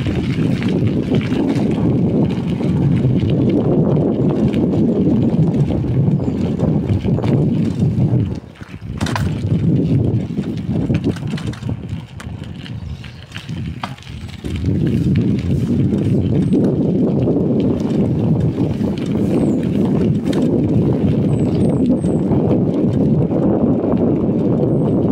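Wind buffeting a phone's microphone while riding along a road, a rough rumbling noise. It eases off for several seconds in the middle, then comes back at full strength.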